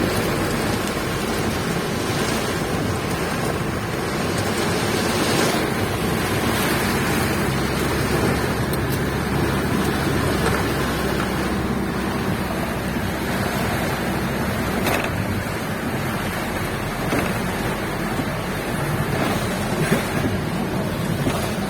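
Windstorm with rain: a steady rushing of wind and rain, with wind buffeting the microphone.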